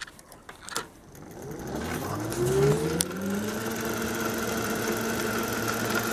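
Hoverboard hub motor in a friction drive spinning up against a bicycle's rear tyre: a motor whine rising in pitch for a second or two, then running steadily at full speed. A few light clicks come before it starts.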